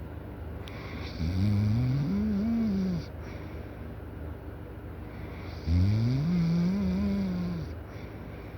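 Loud snoring: two long snores about four and a half seconds apart. Each rises in pitch at the start, then holds and wavers before stopping.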